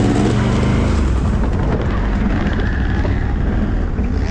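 ATV engine running as the quad is ridden, revving up in the first second and then carrying on under a heavy, rumbling noise.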